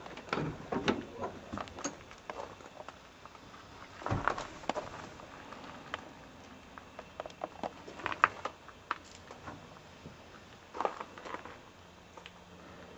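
1972 GMC pickup's door latch clicking open and someone climbing into the cab, with scattered clicks and knocks and one heavier thump about four seconds in.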